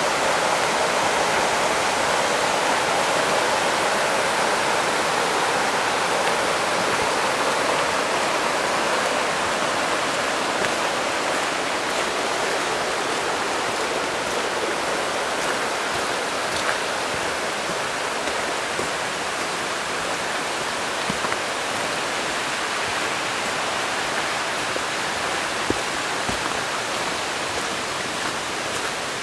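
A rocky forest brook rushing and splashing over stones: a steady rush of water that grows a little fainter toward the end.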